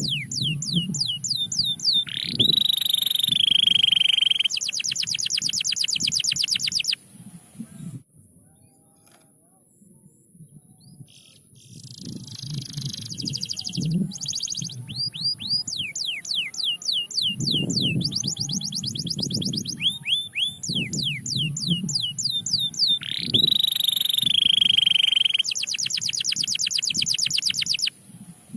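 Domestic canary singing in two long phrases of fast trills of repeated downward-sweeping notes, a rising whistle that runs into a long buzzy roll, and rapid chattering rolls. A pause of about four seconds falls in the middle. A thin steady high tone runs underneath.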